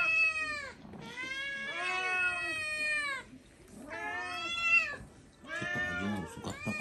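A black kitten meowing insistently: four long, drawn-out meows, each rising and then falling in pitch, the second the longest at about two seconds.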